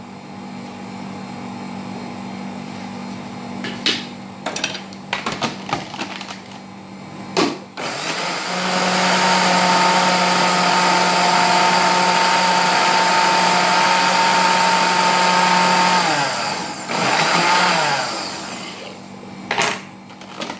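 Electric kitchen blender running steadily for about eight seconds with a fixed whine, blending a green herb marinade, then winding down, followed by a short second pulse. A few knocks come before it starts.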